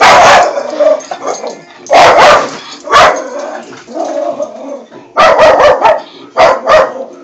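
Dog barking in loud, sharp barks: a few single barks, then a quick string of several, in alarm at an open umbrella being waved at it.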